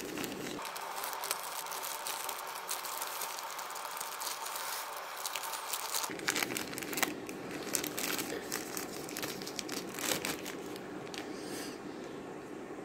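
Thin clear plastic pouch crinkling as it is handled and pulled open by hand, with a few sharper crackles partway through.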